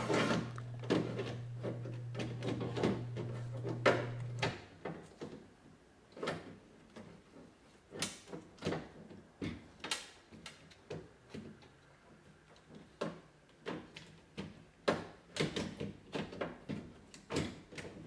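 Irregular clicks, knocks and rattles of a truck's rear door latch and power lock actuator assembly, with its lock rods and cables, being worked down and out through the openings in the door's inner panel. A steady low hum runs for the first four seconds or so, then stops.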